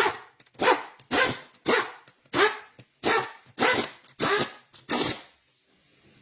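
A dog barking repeatedly at a steady pace, about nine barks, stopping about five seconds in.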